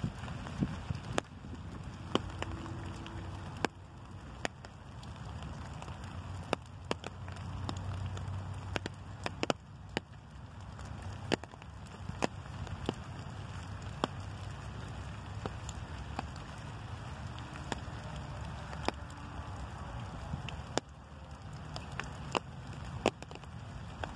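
Light rain with sharp, irregular ticks of drops striking close by, roughly one or two a second, over a steady low rumble.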